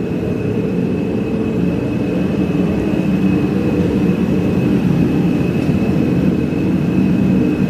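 Steady machine drone with a constant thin high tone above it, unchanging throughout.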